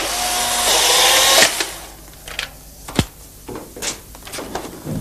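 A camera's motor drive whirring for about a second and a half as it winds on the film after a shot, then cutting off. A few scattered knocks and clicks follow, the sharpest about three seconds in.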